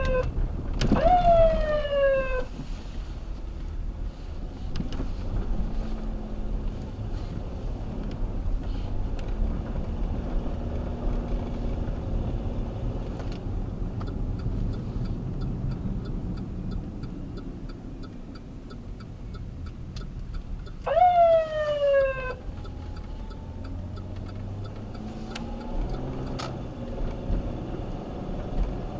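Federal Signal Touchmaster Delta electronic siren giving short falling blips, one about a second in and another about 21 seconds in, over the responding vehicle's engine and road noise. A regular ticking is heard for several seconds midway.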